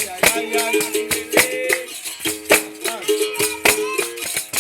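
Capoeira Regional bateria playing: a berimbau's string tone stepping quickly back and forth between its two notes in a repeating rhythm, over sharp, regular pandeiro slaps and a caxixi rattle. A singer holds a last sung syllable for about the first second.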